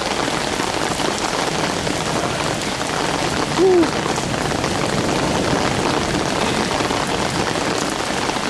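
Steady heavy rain falling, an even hiss of drops. About three and a half seconds in there is a brief pitched sound, the loudest moment.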